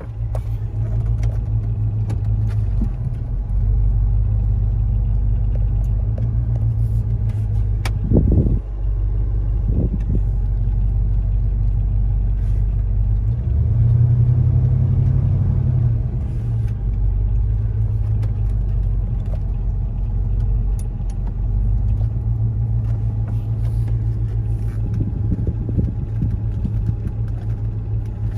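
1989 Ford F-150 pickup heard from inside the cab, rolling slowly in four-wheel drive with a steady low engine and drivetrain rumble. There is a knock about eight seconds in and a lighter one about ten seconds in. The engine sound swells for a couple of seconds around the middle.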